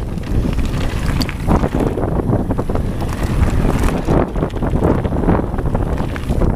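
Wind rushing over the camera microphone while a mountain bike rolls along a gravel trail, with a constant crunch and rattle from the tyres and bike.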